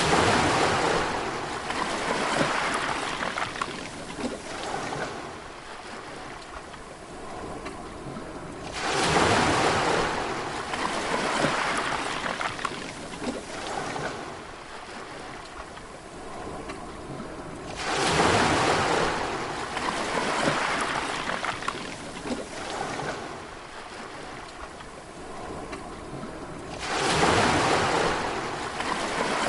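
Sea waves breaking on the shore, one surge of surf about every nine seconds, four in all, each swelling suddenly and fading slowly into a steady wash.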